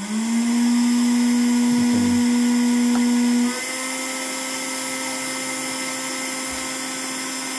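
The fan of a homemade heat-gun coffee roaster starts up and runs with a steady motor hum and whine. About halfway through it drops in loudness and its pitch rises slightly as the fan setting changes.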